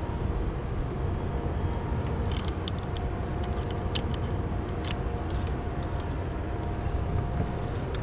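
Steady rumble of wind on a head-mounted camera's microphone high on a building face, with a run of light metallic clinks from rope-access carabiners and harness hardware between about two and five and a half seconds in.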